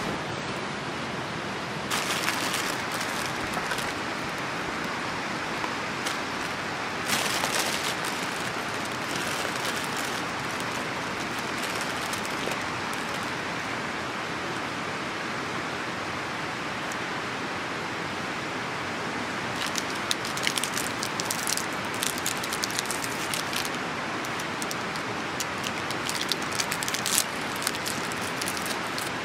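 Steady rushing hiss with scattered clicks and crackles, thickest in the last third.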